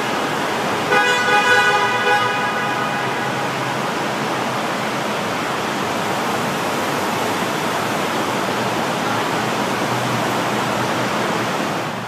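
A car horn sounds once for about a second, near the start, in a road tunnel. Steady traffic noise echoing in the tunnel fills the rest.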